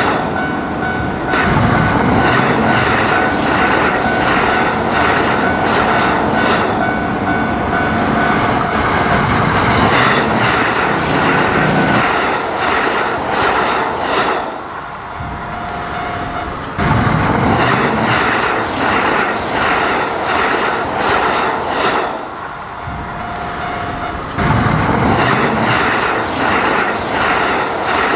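Electric train running on rails, its wheels clacking rhythmically over the rail joints, with brief quieter spells.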